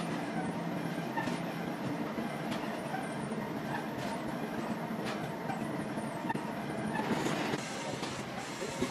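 Workshop machinery running with a steady, noisy clatter and faint knocks roughly once a second.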